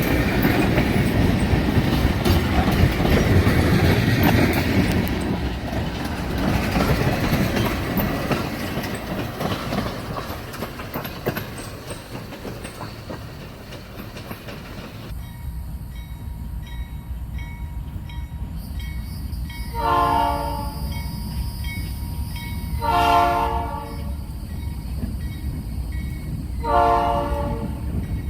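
Freight train rolling past, its wheels rumbling and clacking on the rails. Then, after an abrupt change in the sound, the air horn of a GE B39-8E diesel locomotive sounds three short blasts about three seconds apart over a low engine rumble.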